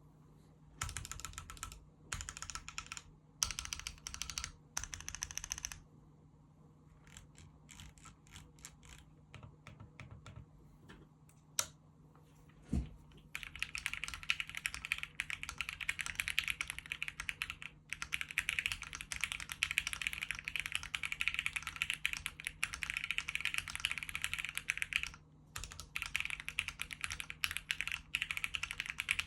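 Typing on a Weikav Sugar65 metal-cased custom mechanical keyboard. It opens with four short bursts of fast keystrokes, then slower single key presses with one deeper thud, then steady fast typing from about halfway with one short pause.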